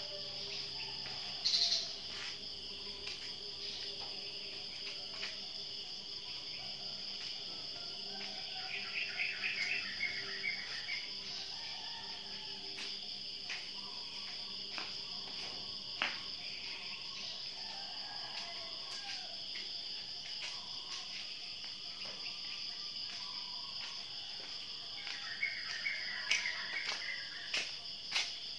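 Steady high-pitched insect chirring, with two short runs of chirping notes partway through and near the end.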